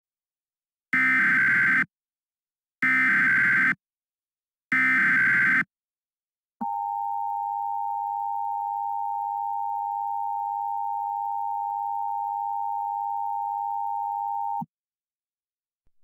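Emergency Alert System tones: three short bursts of SAME header data about a second each, then the two-tone EAS attention signal held steadily for about eight seconds before cutting off suddenly, the sound that opens an emergency alert broadcast.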